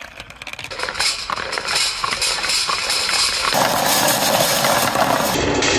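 Plastic marble-run balls rolling and clattering along a wavy plastic track, with many small clicks. About three and a half seconds in, this gives way to a denser, steadier rolling rumble as many balls circle around inside a large plastic funnel.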